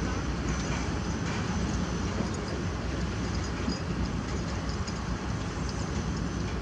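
Diesel engine of heavy construction machinery running steadily, with a low, even engine note.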